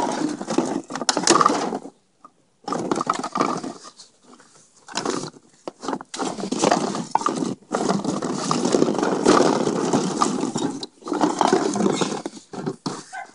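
Empty plastic bottles and aluminium drink cans crinkling and clattering against each other in a plastic paddling pool as a puppy steps and roots through them, in bouts with brief pauses, one short stop about two seconds in.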